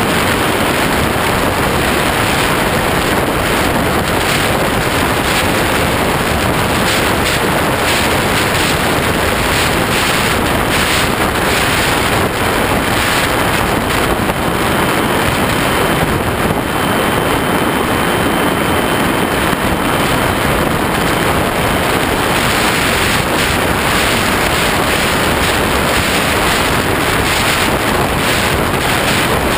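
Steady loud rush of airflow buffeting the microphone of a camera mounted under the wing of a ParkZone Habu electric ducted-fan RC jet in flight. A faint high steady whine, typical of the ducted fan, comes through for several seconds in the middle.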